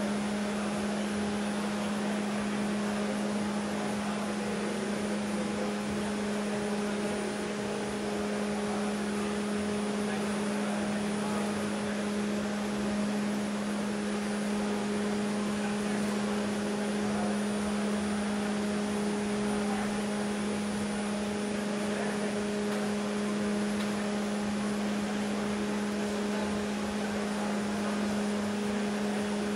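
Steady drone of electric fans blowing wind across the basin for the model sailing boats: a constant low hum with an even rush of air, unchanging throughout.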